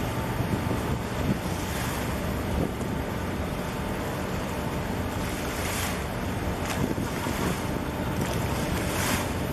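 Wind buffeting the microphone over a steady low rumble and harbour water noise, gusting briefly a couple of times.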